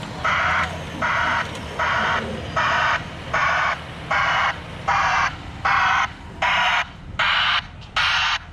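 Backup alarm of a Grove mobile crane beeping steadily, about one beep every 0.8 seconds, over the low running of the crane's engine.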